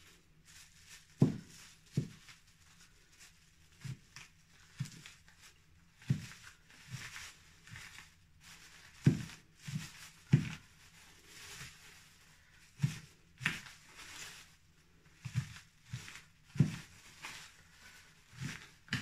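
Kitchen knife chopping shiitake mushrooms on a newspaper-covered worktop. The blade strikes the surface in irregular dull knocks, roughly one a second, with rustling of newspaper and a plastic bag between the cuts.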